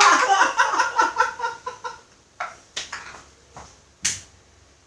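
A person's voice in rapid, pitched pulses that die away over about two seconds. Then come a few short, sharp knocks or slaps spaced about half a second apart.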